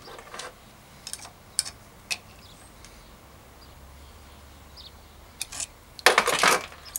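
Metal clicks and clinks of a cone spanner fitted to the lock nut and cone on a Sturmey Archer AW hub's axle to back off a bearing adjustment that was too tight. A few scattered light clicks, then a louder run of clinks about six seconds in.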